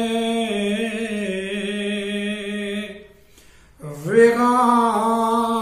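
A man's voice reciting an Urdu devotional manqabat unaccompanied, holding the end of a sung line in one long, slightly wavering note for about three seconds. After a short break he starts the next line.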